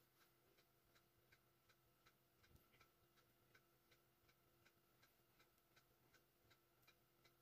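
Near silence except for a wall clock ticking faintly and evenly, about three ticks a second, over a faint steady hum.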